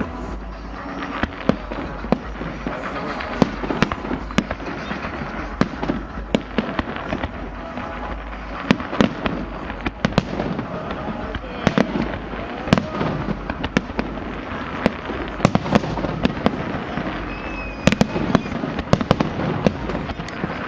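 Fireworks display: an irregular, rapid series of sharp bangs and crackles from bursting shells throughout.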